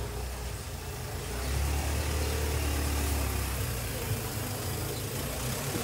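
A car engine idling close by, a steady low hum that weakens about three and a half seconds in.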